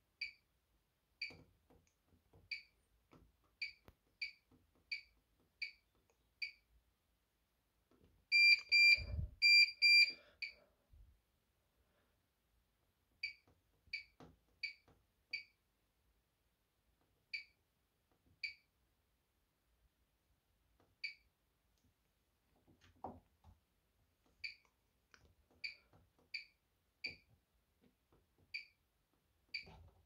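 Bosch Serie 6 washing machine control panel beeping as its buttons are pressed: short, single high beeps at irregular intervals, a new one every second or so. About a third of the way in come two longer, louder tones.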